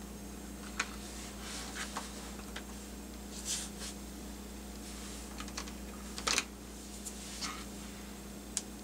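Small plastic cable connectors clicking together and thin wires rustling as the leads of RGB LED halo rings are plugged into their controller: scattered light clicks, the loudest a little past six seconds in. A steady low hum runs underneath.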